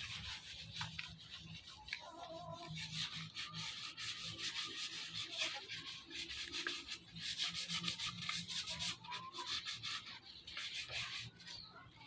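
Quick, repeated rubbing strokes of a hand tool scratching across the surface of a wooden stump table.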